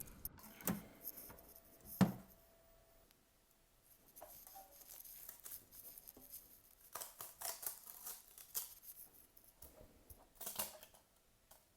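Faint handling noises: scattered scrapes, rustles and clicks, with a sharper knock about two seconds in.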